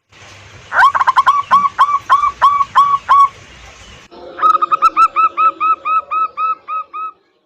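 Zebra dove (perkutut) singing: rapid runs of short, hooked cooing notes, about three or four a second, in two bursts with a short break between them.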